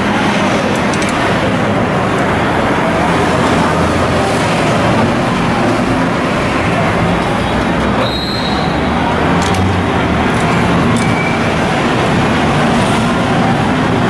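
Steady, loud roadside traffic noise from a busy city street, with a few faint light clicks.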